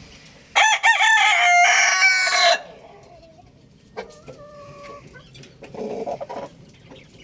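A rooster crowing once, loud, for about two seconds: a few short broken notes, then a long held note. Fainter chicken clucks and calls follow.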